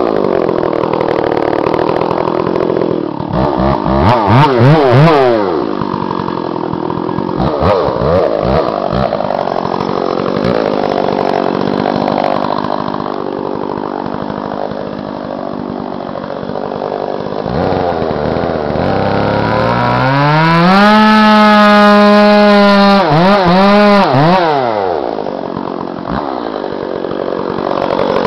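Gasoline chainsaw cutting into a big poplar during felling: the engine revs up and down repeatedly under load, drops to a low idle for a couple of seconds past the middle, then is held at high revs and blipped several times near the end.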